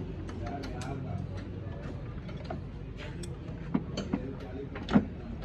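Irregular metallic clicks and light knocks of hand tools working on car parts during a clutch job, with one louder knock about five seconds in, over a low steady hum.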